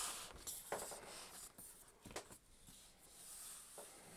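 Faint handling sounds of one laptop resting on top of another and being nudged into line by hand: light rubbing of palms on the lids and a couple of soft taps, about a second in and again near the middle.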